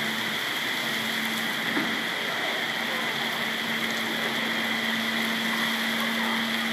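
Torrential rain falling, a steady hiss with no letup, and a faint steady hum underneath.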